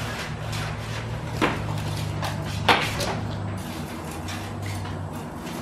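Knocking and scraping as mortar and broken concrete are chipped out from between stone blocks, with two sharper knocks, one about a second and a half in and one near three seconds, over a low steady hum.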